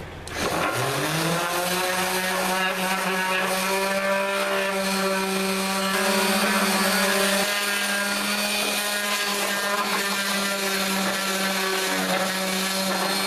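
Electric random orbital sander with 80-grit paper starting up, its motor rising in pitch over about a second to full speed. It then runs steadily with a hiss of abrasive against a wooden 2x4 handle.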